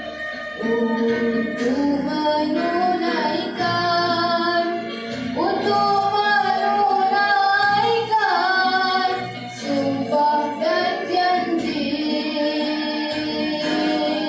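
A boy's voice singing a patriotic song with long held notes over backing music; the melody jumps up about five seconds in and slides down around eight seconds.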